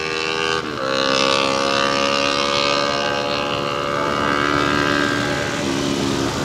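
Motorcycle engine running at a steady cruising speed with an even drone, its pitch dipping slightly about half a second in and then holding steady.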